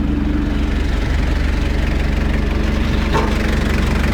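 Toyota diesel skid steer engine idling steadily and quietly, with an even low pulse.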